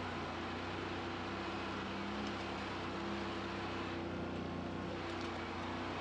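Off-road 4x4's engine running at a steady low speed, a constant hum with no revving.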